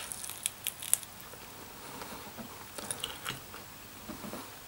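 Person biting into and chewing a chicken wing: a few faint, sharp crunchy clicks in the first second, and more around three seconds in.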